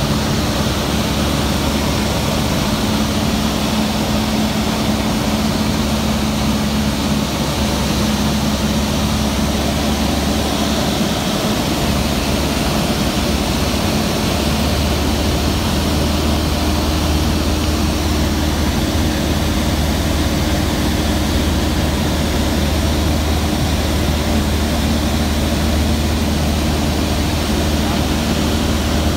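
Jodel D140 light aircraft's four-cylinder piston engine and propeller droning steadily, heard from inside the cockpit during the approach to landing. The engine note shifts in pitch about halfway through, a change in power.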